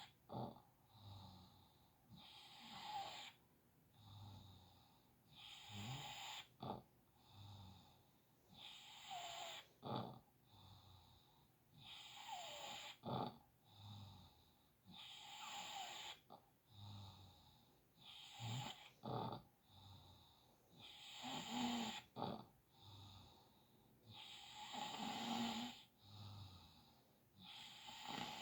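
Snoring: slow breath after breath, about every three seconds, with a few short sharp snorts in between.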